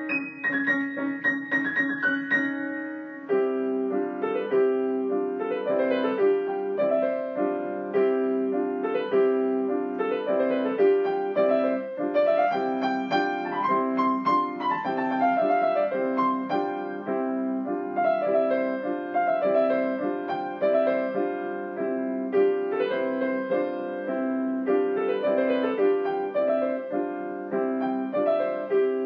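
Solo piano improvisation: a steady repeated accompaniment figure with a melody above it that climbs and then falls back about halfway through.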